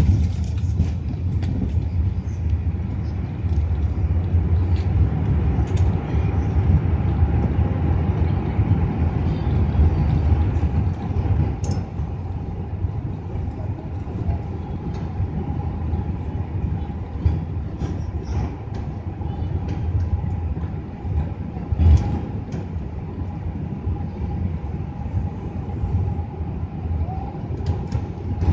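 Airbus A380 touching down and rolling out on the runway: a sudden jump into a loud, steady low rumble as the wheels meet the runway, easing somewhat after about ten seconds as the plane slows, with a steady whine running through it from about six seconds in.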